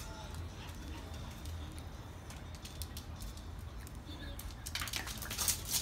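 A toy poodle's claws clicking and tapping on a hard balcony floor, scattered at first, then a dense burst of close clicks and rustling near the end as the dog comes up to the phone with its toy. A low steady rumble lies underneath.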